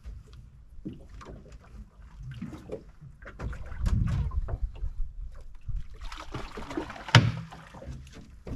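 Small open fishing boat at sea: water sloshing against the hull with irregular knocks and thumps. A hissing rush of splashing starts about six seconds in, and a sharp knock a second later is the loudest sound.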